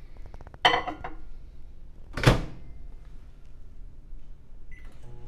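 Frigidaire Gallery microwave being loaded and started: a glass Pyrex measuring cup is set down inside with a ringing clink, the door is shut with a loud thump, and near the end the keypad gives a short high beep.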